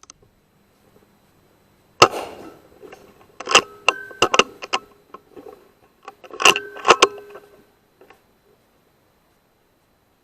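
A single sharp crack about two seconds in, then two bursts of metallic clicking and clatter with a brief ringing, a second and a half apart and again about three seconds later.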